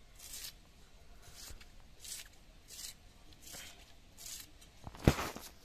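A knife slicing through a raw red onion held in the hand: about seven crisp cuts, roughly three every two seconds, with one louder knock about five seconds in.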